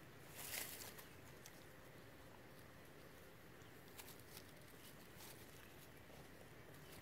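Near silence: faint outdoor background hiss, with a brief rustle about half a second in and a few faint clicks later.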